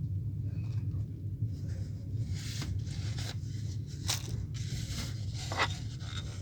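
A wheel creaking and scraping as it turns, in uneven scrapes with a few sharp clicks, over a steady low rumble.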